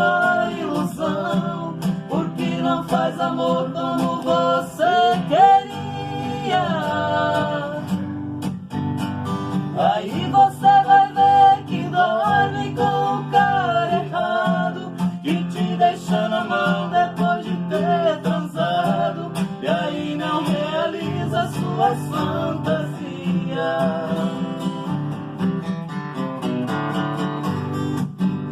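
Music: a song with a melody sung over strummed acoustic guitar and a steady bass line.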